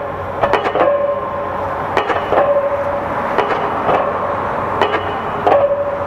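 Several diesel pile hammers on crawler piling rigs driving piles, about nine sharp blows at uneven intervals, each followed by a short metallic ring, over a steady low rumble of machinery.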